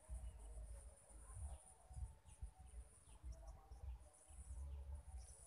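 Faint outdoor ambience: scattered short bird chirps over a gusty low rumble of wind on the microphone, with a steady high-pitched hiss underneath.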